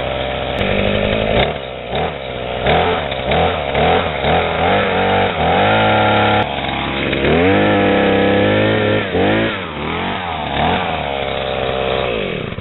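Gas-powered post hole auger engine, running on a newly fitted carburetor, revving up and down again and again as the auger bores into the ground, with two longer stretches held at high revs; it drops away right at the end.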